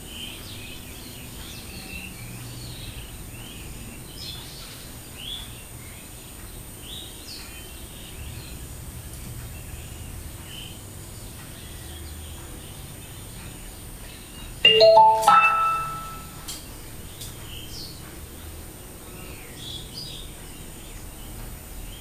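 Bookshelf speakers of a DIY Wi-Fi audio receiver play a short chime of a few notes rising in pitch about fifteen seconds in, the top note held briefly: a start-up prompt tone as the Up2Stream module boots. Around it, faint birds chirping.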